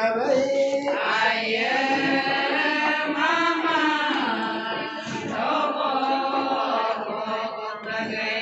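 Group of women chanting a ponung song together, the traditional Adi dance-song, in a steady sung chant with drawn-out, gliding notes.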